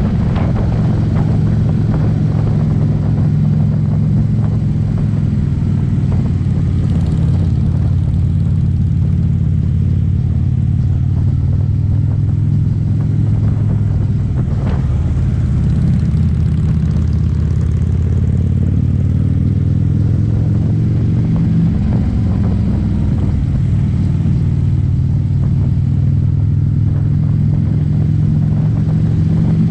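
Harley-Davidson motorcycle's V-twin engine running steadily at road speed, its pitch shifting a little in the middle as the throttle changes.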